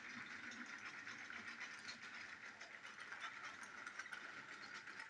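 Battery-powered Plarail toy train running along plastic track: a faint, steady motor whir with the light rattle of the wagons.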